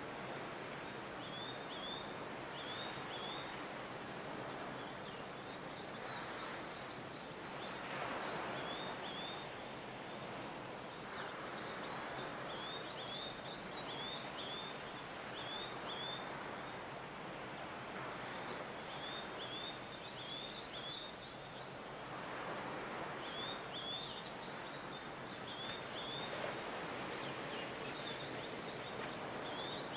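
Soft surf washing in slow swells, with runs of quick, high chirping calls repeating throughout and a faint steady high hiss above.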